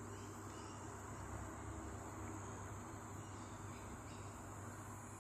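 Faint, steady high-pitched chirring of crickets, with a low steady hum beneath it.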